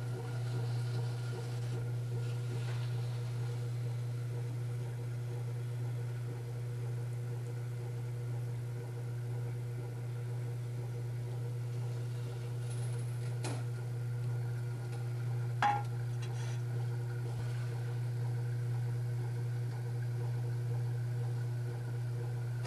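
A steady low hum with fainter steady higher tones, unchanging throughout, with a couple of brief clicks about two-thirds of the way through.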